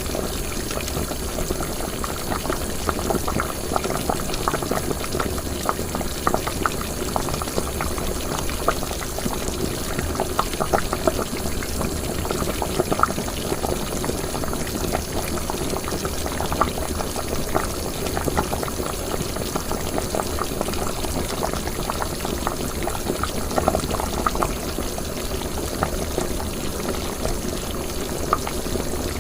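Liquid boiling in cooking: a steady bubbling, dotted throughout with many small, irregular pops.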